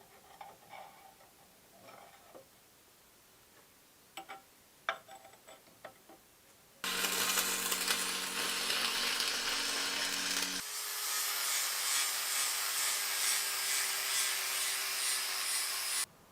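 A few light knocks and clicks, then a power tool working wood: a loud rasping noise over a steady motor hum. The hum changes pitch abruptly partway through, and the sound cuts off suddenly near the end.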